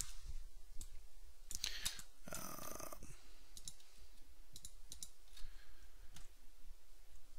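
Sparse, light clicks of a computer mouse and keyboard, a few at a time, over a faint steady low hum.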